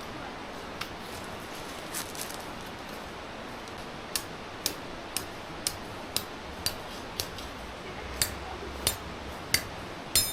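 A run of sharp, evenly spaced clicks, about two a second, starting about four seconds in over a steady hiss of wind, the last one near the end the loudest and with a short ring.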